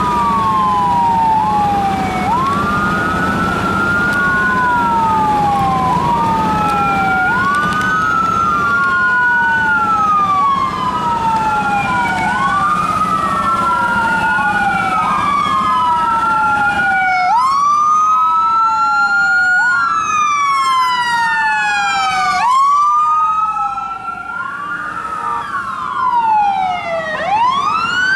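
Emergency vehicle sirens on wail, at least two out of step with each other, each rising quickly and falling slowly about every two and a half seconds. A low vehicle rumble underneath fades about two-thirds of the way through, and the siren sound becomes fuller after that.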